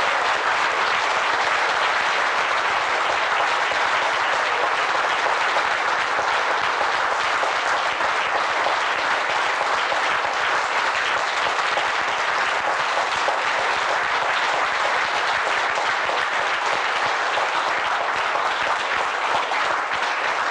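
Audience applauding: a roomful of people clapping steadily without a break.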